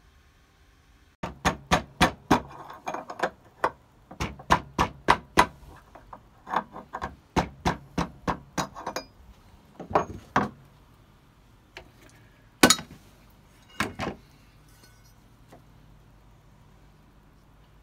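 Hammer blows on a metal drift held in the bearing bore of a 1960s Black & Decker bench grinder's cast-metal end cover, knocking the part in the bore out. A quick run of sharp taps, about two to three a second, goes on for several seconds, then stops. Two single, harder blows follow, the first the loudest.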